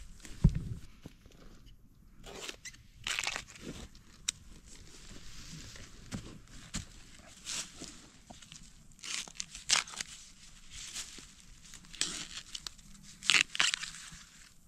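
Dry bamboo leaves and sheaths crunching and rustling, with sharp snaps and knocks, as wild monastery bamboo (ไผ่รวก) shoots are dug out and broken off by hand at the base of the clump. A heavy thump comes about half a second in.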